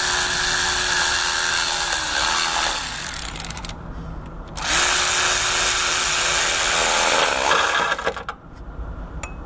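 Handheld power ratchet running in water pump bolts in two spins, the second starting about halfway through. Each spin sags and stops as the bolt snugs down.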